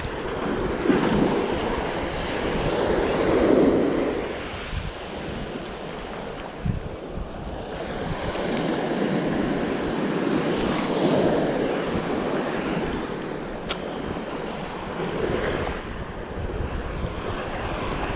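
Ocean surf breaking and washing up the sand in slow swells every several seconds, with wind buffeting the microphone.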